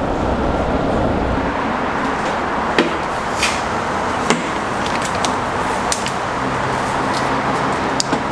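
Steady traffic rumble echoing in an underpass, with a handful of short sharp knocks and clicks as an electric unicycle is handled against a metal stair edge.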